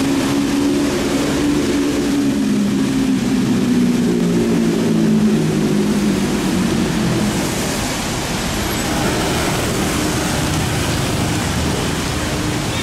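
Motor traffic driving through standing water on a flooded street: an engine hum whose pitch slowly falls over the first six seconds, over a steady hiss of tyres through water that grows brighter about seven seconds in.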